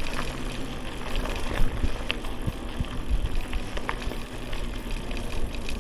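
Wind buffeting a camera microphone on a mountain bike being ridden in a sandstorm, a steady low rumble with tyre and bike noise and a few sharp rattling clicks.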